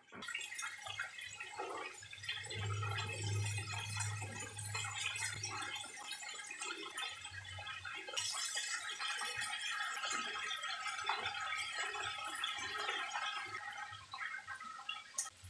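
Chicken pieces deep-frying in hot oil in a wok and a frying pan: a steady, dense crackling sizzle.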